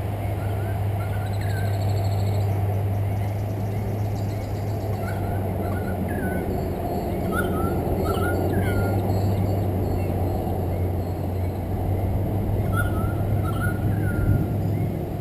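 Birds calling in short chirps, in several separate bursts, over a steady low drone.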